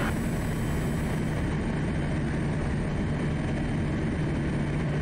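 Quest Kodiak's PT6A turboprop engine and propeller in steady cruise on the approach, heard as an even, unchanging drone inside the cockpit.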